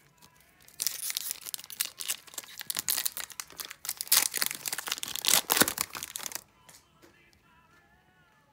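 Foil wrapper of a hockey card pack being torn open and crinkled by hand: a dense crackle that starts about a second in and stops about six seconds in.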